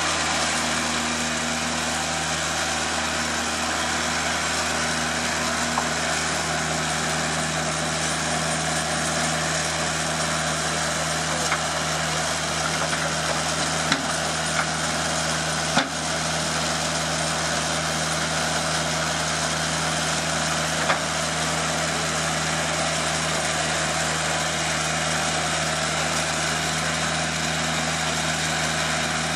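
TimberKing 2000 bandsaw mill's engine running steadily, not under cutting load, with a few brief sharp knocks about halfway through.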